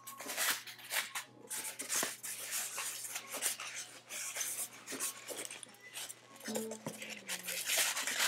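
Packaging being handled: irregular rustling and crinkling of paper and plastic with light clicks and knocks, as an item is packed back into its box.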